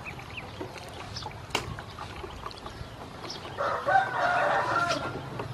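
Ducklings peeping in short, faint chirps. A louder bird call starts about three and a half seconds in and lasts over a second.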